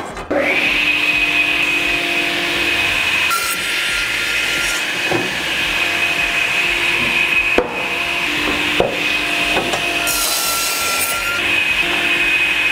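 Pendulum cross-cut saw running with a steady high whine, cutting through spruce construction planks twice, each cut lasting about a second and a half. A few sharp knocks come in between the cuts.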